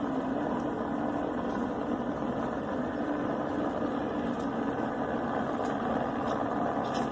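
A steady engine drone at an even level, a low hum under a wide hiss.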